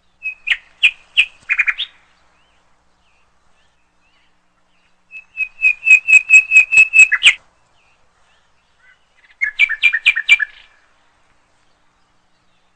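A songbird singing three short phrases of rapidly repeated sharp notes, with pauses of a few seconds between. The middle phrase is the longest and loudest, about ten even notes.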